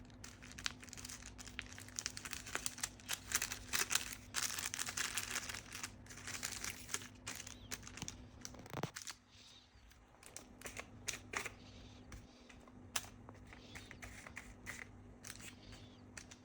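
Homemade fidget board being handled: crinkling and rustling with many small taps and clicks. The sound is busiest in the first half, with one short sliding scrape about nine seconds in, then sparser clicks toward the end.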